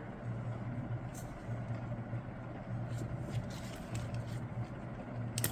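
Steady low hum with a few light, scattered metal clicks, a small cluster of them near the end, as a forgotten fastener is removed from the transmission's valve body.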